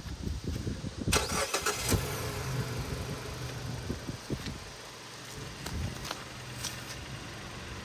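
Car engine cranked and catching about a second in, then idling steadily.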